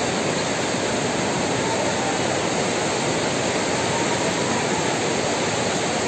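White-water rapids rushing over river boulders: a steady, unbroken noise of churning water.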